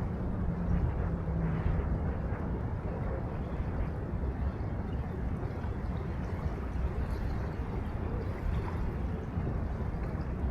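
Steady low rumble of wind and river water along a city riverbank, with a faint low hum during the first couple of seconds.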